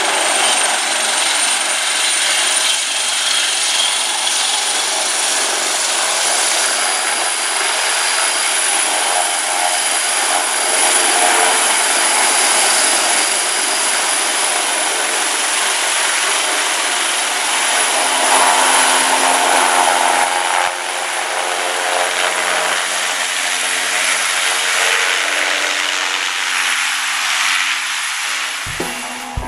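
Airbus Helicopters H225M military helicopter lifting off a ship's flight deck: the steady roar of its twin turboshaft engines and main rotor, with a thin high turbine whine running through it.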